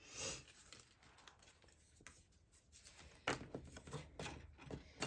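Cardstock being handled on a craft table: a brief paper swish at the start, then light taps and rustles from about three seconds in.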